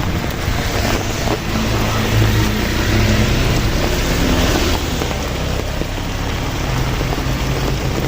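Heavy rain falling steadily, with a strong low rumble underneath.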